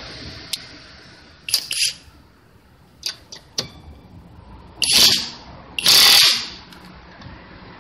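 Cordless impact wrench in low mode run in three short bursts on a car's wheel lug nuts. The trigger is let go as soon as the hammering starts, for a controlled tightening, and the socket clicks on the nuts in between.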